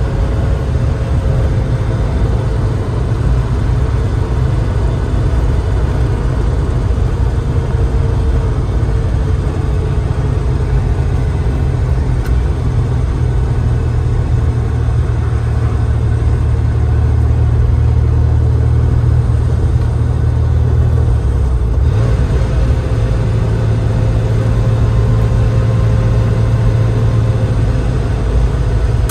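1988 Porsche 911 Turbo's air-cooled turbocharged flat-six engine pulling steadily at cruising speed, heard from inside the cabin along with road noise. Its deep note breaks briefly about three-quarters of the way through, then carries on.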